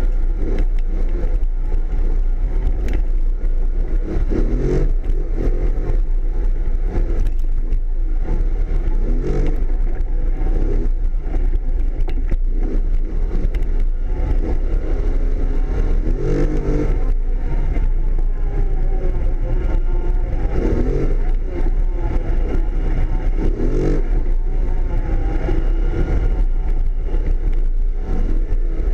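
Engine of a Yamaha off-road vehicle running under way on a dirt trail, its pitch rising and falling every few seconds as the throttle is worked, over a steady low rumble.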